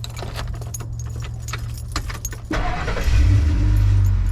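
Keys jangling and clicking, then about two and a half seconds in a car engine cranks and starts, settling into a steady idle.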